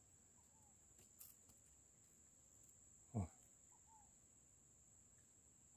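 Faint, steady high-pitched insect trill from crickets in the grass, with a few faint short chirps. About three seconds in comes one brief, louder sound that falls quickly in pitch.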